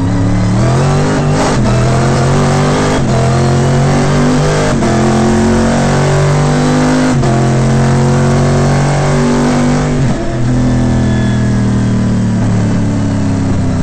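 Stock car race engine heard from inside the cockpit at full throttle, pulling through the gears. The pitch climbs and drops back at each upshift, about three in the first five seconds, then runs high with a brief lift about ten seconds in.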